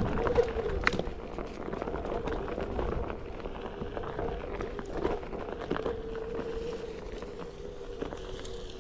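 Onewheel electric board riding over a dirt trail: the hub motor's steady whine with the tyre rolling over packed earth, occasional knocks from bumps, and wind rumbling on the microphone.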